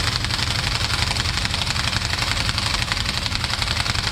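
Impact wrench hammering steadily in a rapid, even rattle, running down the 32 mm axle nut to draw the axle the rest of the way into the new rear hub assembly.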